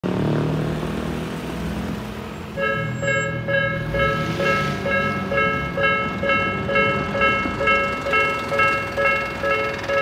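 A car drives over the crossing, then about two and a half seconds in a Japanese level crossing's Nikko-type electronic warning bell starts, ringing a repeated ding about twice a second. It signals a train approaching and the crossing closing.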